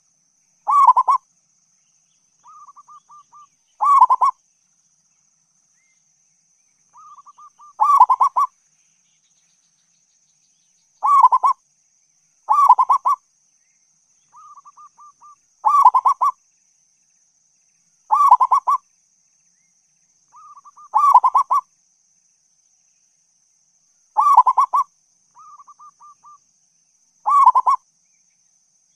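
Zebra dove (perkutut) singing in repeated phrases, about every three seconds. Each phrase is a soft quick run of short notes followed by a loud burst of cooing notes.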